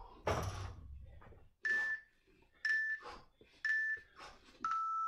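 Interval timer counting down the last seconds of a work period: three short beeps about a second apart, then one longer, lower beep marking the end of the interval. Near the start, a heavy breath from the exerciser.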